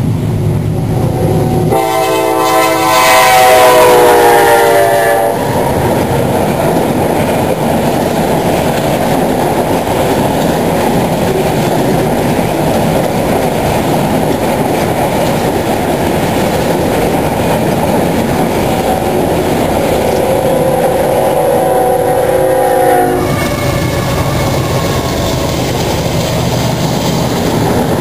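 CSX freight train passing close by: its lead diesel locomotive sounds one long, loud horn blast about two seconds in, lasting some three seconds, and the pitch sags as it goes by. Then comes the steady rumble and clatter of the cars rolling past. A second, fainter horn sounds around twenty seconds in.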